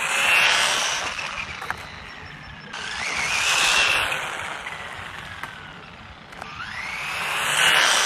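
A 1/18-scale RC truck making speed passes: the high whine of its small electric drive rises in pitch and loudness as it closes in, then drops away as it passes. This happens three times, about three and a half seconds apart.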